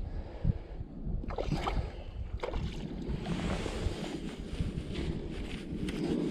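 Wind buffeting the microphone with water lapping, and a few sharp clicks and rustles from handling a fly rod and line.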